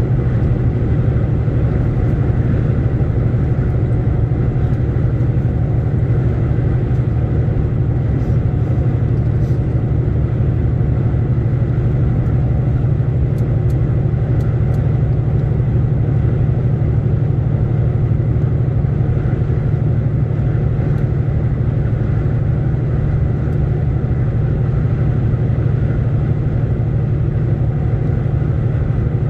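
Lorry driving at a steady speed: an even, low engine and road drone with no change in pitch or level.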